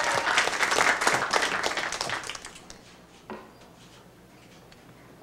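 Audience applause dying away over the first two and a half seconds, then a single light knock.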